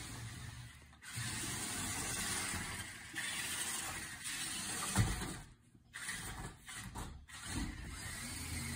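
Toy remote control truck's electric motor and gears whirring as it drives in spurts, stopping and starting several times, with a sharp knock about five seconds in.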